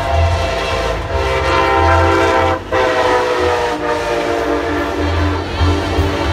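Amtrak Pacific Surfliner train passing close and sounding its multi-chime air horn as a chord, in blasts with a short break about two and a half seconds in.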